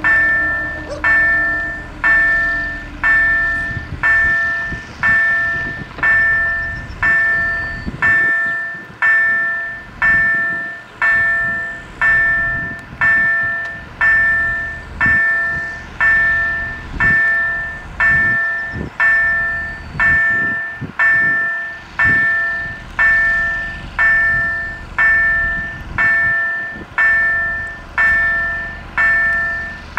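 Level-crossing warning bell striking about once a second, each stroke ringing and dying away, sounding as the crossing closes ahead of a train. A low steady hum under it for the first few seconds while the barrier arms come down.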